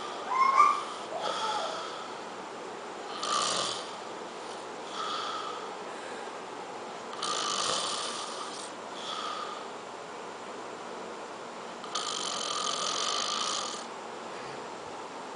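A man snoring in his sleep, with a noisy snoring breath every couple of seconds and longer, louder snores about seven and twelve seconds in. A brief whistling sound just after the start is the loudest moment.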